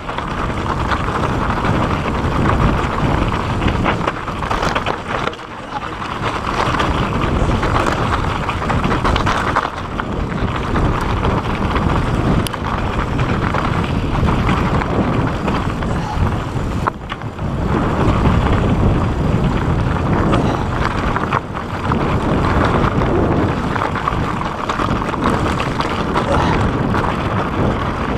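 Wind rushing over the camera's microphone on a fast mountain-bike descent, mixed with the tyres rolling over loose rocky dirt and scattered knocks from the bike over rough ground.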